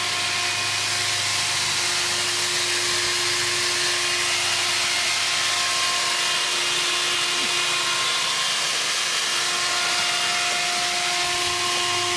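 A small motor running steadily: a constant whine over an even hiss, with no change in speed.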